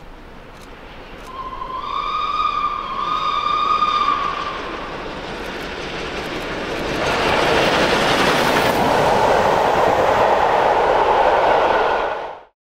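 LNER K4 class steam locomotive No. 61994 The Great Marquess sounds its whistle for about three seconds as it approaches. The locomotive and its coaches then pass close by at speed, a loud steady rush of wheels on rail that cuts off suddenly near the end.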